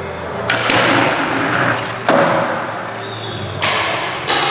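Skateboard on smooth concrete: a sharp clack of the board popping about half a second in, a rough scraping noise as it slides, then a hard clack of the wheels landing about two seconds in. Another scrape and clack follow near the end.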